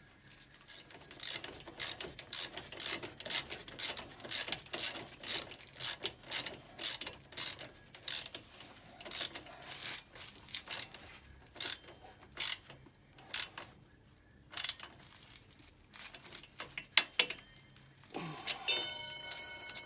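Socket ratchet clicking in steady strokes, about two a second, as the ATV's swingarm pivot nut is tightened, then slowing to scattered clicks. Near the end, a sharp metal clang that rings on.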